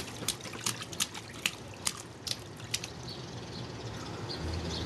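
Water dripping and splashing in a string of small irregular splats that thin out after about three seconds, leaving a faint hiss. A low hum comes in near the end.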